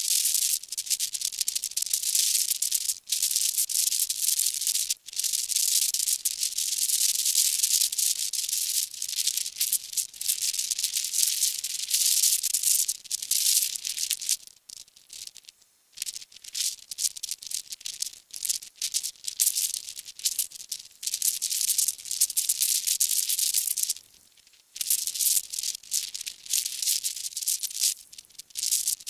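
Grainy, high-pitched hiss of background noise that flickers constantly like a shaken rattle. It drops away briefly about halfway through and again about three-quarters through.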